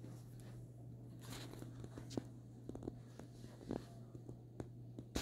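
Faint handling noise: scattered light clicks and rustles, more frequent after about a second, over a steady low hum.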